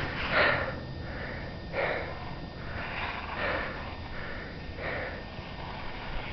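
A person breathing hard and heavily close to the camera microphone, one loud noisy breath about every second or so, all out of breath from skiing.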